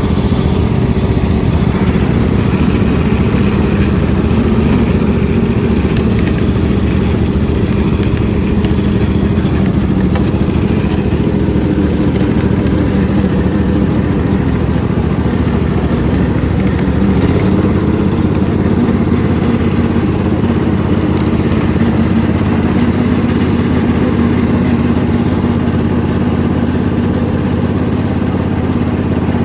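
Riding lawn mower engine running steadily under way, its tone shifting a little over halfway through.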